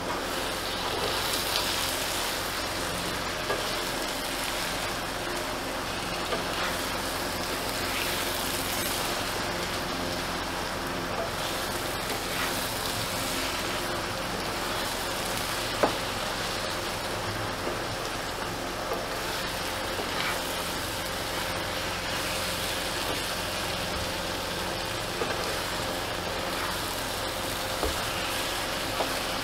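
Red amaranth greens (lal shak) sizzling steadily in oil in a nonstick wok as they are stir-fried with a wooden spatula, with a few light knocks of the spatula against the pan, one sharper about halfway through. The greens are at the last stage of frying, green chillies just added, before the pan comes off the heat.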